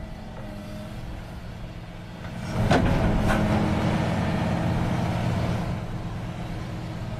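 Excavator engine running steadily, then about two and a half seconds in it gets louder as the boom moves, with two sharp clunks close together; the sound eases back down near the end.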